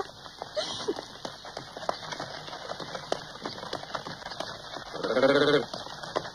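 Scattered knocks of footsteps and horse hooves on cobblestones, street bustle of a horse-drawn town. About five seconds in comes a short, quavering animal call, the loudest sound here.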